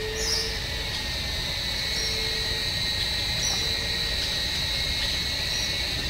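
An insect holds one steady high-pitched buzz, with a few short faint bird chirps over it and a low rumble underneath.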